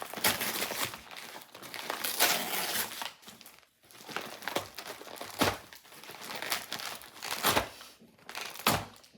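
Gift wrapping crinkling and tearing in irregular bursts as a dog pulls and rips at a present.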